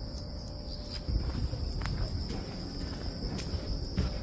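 Insects chirring in a steady, unbroken high-pitched drone. From about a second in, a louder low rumble and light footfalls on a dirt path join it.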